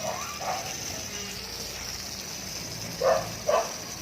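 A dog barking twice in quick succession, about three seconds in, with a fainter bark or yelp right at the start.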